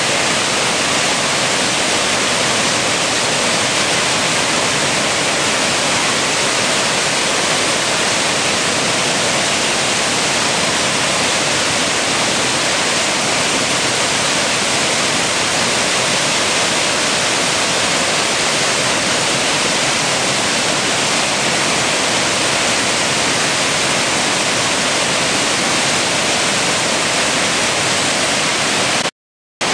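Water pouring from the open spillway gates of a concrete dam into the basin below: a loud, steady rushing of falling water and spray. It cuts out suddenly for a moment near the end.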